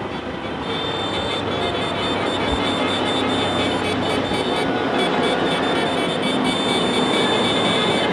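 Traffic noise of an approaching motorcade: police escort vehicles followed by a long column of motorcycles, their engines growing gradually louder as they near.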